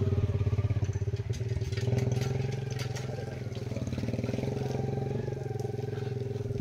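An engine running steadily, a low drone with a fast even pulse, and a few light metallic clicks about one to three seconds in.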